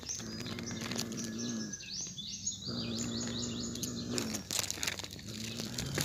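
Domestic cat growling low and steadily over a zebra dove held in its mouth, in two long stretches with a short pause for breath in between. Birds chirp in a rapid high series in the middle, and dry leaves crackle.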